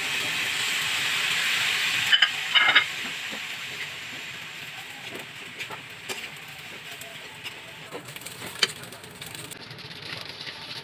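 Fried rice sizzling in a hot pan as soy sauce hits it: a loud sizzle for the first couple of seconds that then dies down. A spatula clatters against the pan about two seconds in and keeps clicking as the rice is stirred.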